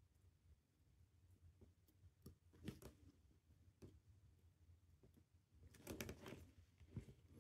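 Faint, scattered clicks of steel tweezers and a metal movement holder during work on a watch movement, over a low steady hum, with a brief denser cluster of clicks near the end as the holder is turned.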